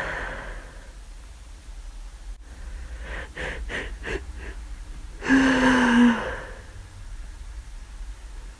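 A person with flu in a sneezing fit, the nose itching constantly. Several quick, sharp catching breaths come about three seconds in. About five seconds in there is one loud voiced outburst, nearly a second long, with its pitch sagging slightly.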